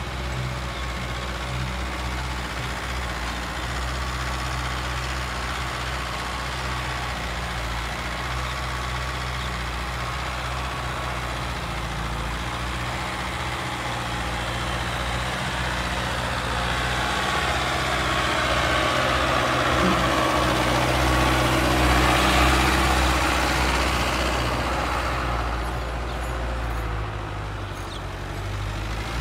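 Mahindra Arjun Novo 605 DI tractor's four-cylinder diesel engine, fitted with an added turbocharger, running steadily under load as it pulls a tine cultivator through the soil. It grows louder for several seconds past the middle, then drops back.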